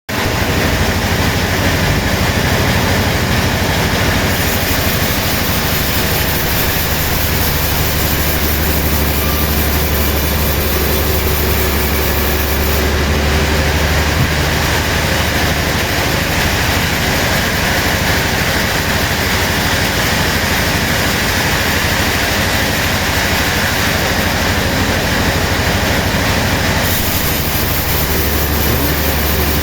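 Sawmill machinery running continuously: a steady heavy low hum under a dense, even mechanical din, with no pauses.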